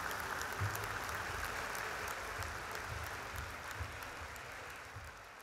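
Audience applauding in a hall after a folk music number, the clapping slowly dying away.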